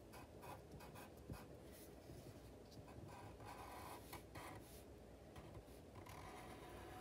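Faint sound of a Sharpie marker drawing lines on paper: a run of short strokes, with longer drawn-out strokes a little past halfway and over the last second.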